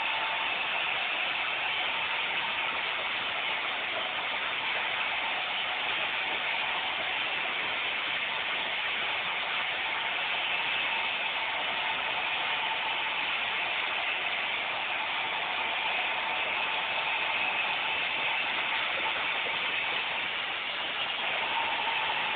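Roomba robot vacuum running as it manoeuvres to dock: a steady whir of its motors, with a faint hum that comes and goes.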